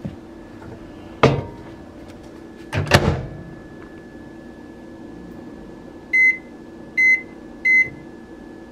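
Hamilton Beach microwave oven: a clunk and then a louder double clunk as the bowl goes in and the door is shut, followed by three short high beeps from the keypad as the cooking time is set.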